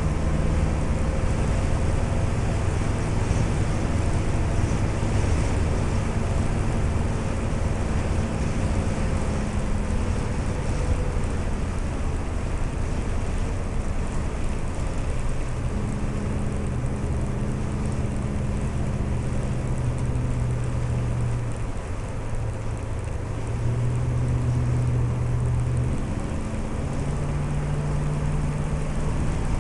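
1960 Chrysler Saratoga's V8 running on the road, heard from inside the cabin over tyre and road noise. The low engine note holds steady and shifts in pitch several times, easing off briefly about two-thirds of the way through before it picks up again.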